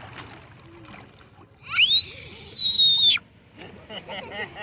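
A loud, high whistle about a second and a half long, swooping up sharply at the start, then held while sagging slightly in pitch before cutting off.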